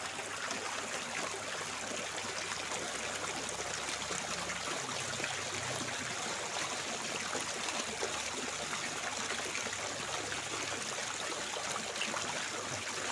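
Running water trickling and splashing steadily, without a break.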